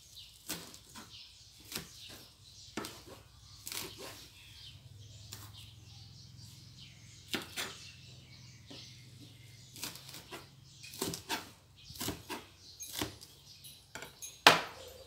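Kitchen knife chopping frilly lettuce on a plastic cutting board: irregular knocks and crisp cuts about once a second, with a quick run of cuts a little past the middle and one louder knock near the end.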